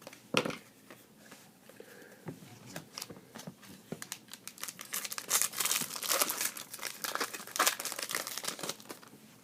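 Thin plastic trading-card packaging being crinkled and crumpled by hand, with a sharp crackle about half a second in and a dense run of rapid crinkling in the second half.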